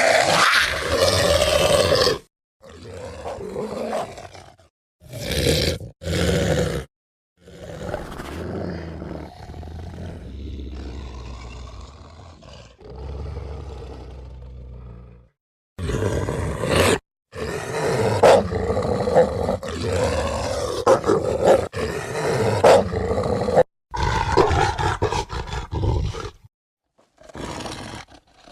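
A string of werewolf sound effects: separate snarling growls and roars, each cut off sharply into silence. A loud roar opens, a longer, quieter, deeper growl runs through the middle, and louder roars follow.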